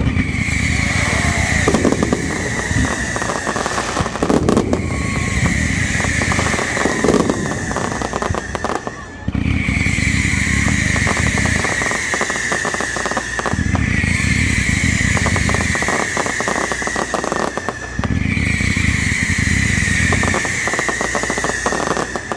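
Fireworks finale: a series of whistling fireworks, each a long, slightly falling whistle of three to four seconds with a rumble under it, repeating about every four and a half seconds. Dense crackling from the shower-like bursts runs underneath.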